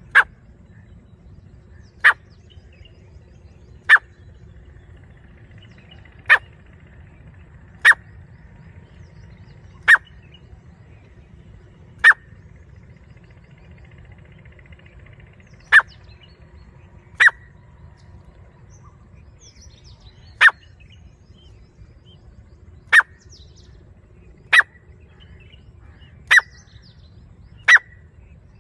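Grey francolin giving short, sharp single call notes, about one every two seconds, fourteen in all.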